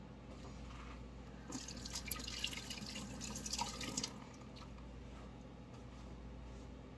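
Kitchen sink tap running as hands are washed under it, starting about a second and a half in and shut off about four seconds in.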